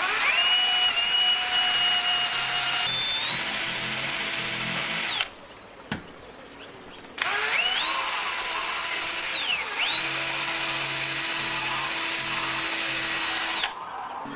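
Electric drill with a twist bit boring through a black plastic housing: the motor spins up with a rising whine, runs about five seconds and stops, then after a click runs again for about six seconds, its pitch dipping briefly midway.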